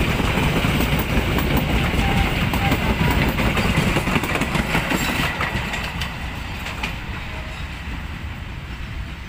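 Indonesian passenger train's coaches rolling past close by, wheels clacking rhythmically over the track and points. From about six seconds in the rumble fades as the train moves away.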